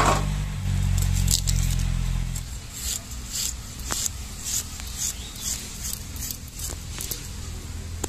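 Red onions being sliced against an upright blade set in a wooden block: short crisp cuts, about two a second, through the middle of the clip. A low steady hum runs under the first couple of seconds.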